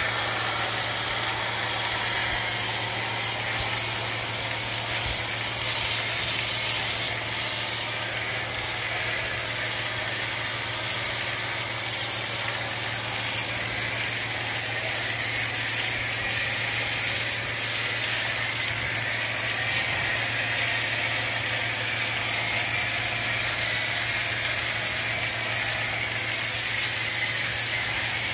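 Pressure washer spraying a jet of soapy water through a foam lance onto cattle and a brick floor: a steady hiss of spray over the washer's constant low motor hum.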